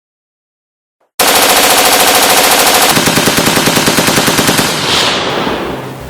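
Rapid automatic gunfire, many shots a second, bursting in suddenly after a second of dead silence and tailing off near the end.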